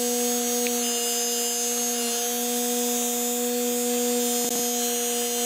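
Small brushed DC motor from a Makita FD02 cordless drill, running unloaded at steady speed on the second battery during a runtime test: a steady hum with a faint high hiss above it.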